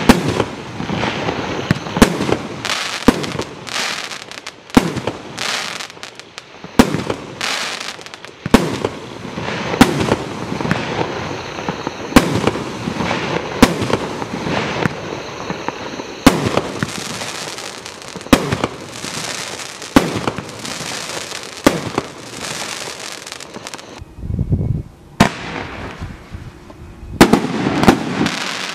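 Primed Pyrotechnics Joker's Wild consumer barrage cake firing: sharp shots and bursts every second or two, with a continuous crackling hiss between them. A brief lull near the end is broken by a deep thump, then the shots resume.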